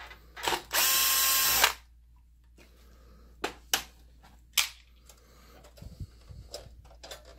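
A cordless DeWalt drill/driver runs for about a second, backing a screw out of a projector's rear panel. It is followed by a few sharp clicks and light handling noise.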